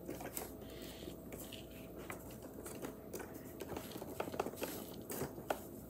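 Light handling noise from small wooden and plastic kit parts: scattered soft clicks and rustling as fingers fit a piece onto a yellow plastic spool. The clicks come more often in the second half.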